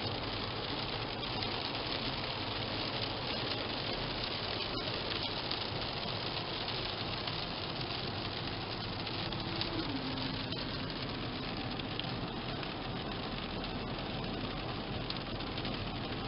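Steady road noise and engine hum of a car driving along, with a faint low tone that steps down in pitch about ten seconds in.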